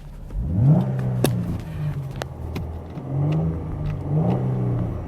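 2020 Chevrolet Camaro's 3.6-litre V6, without the optional active exhaust, revved in neutral about three times, pitch climbing and falling back each time. Heard from inside the cabin with the windows up, where it sounds quiet.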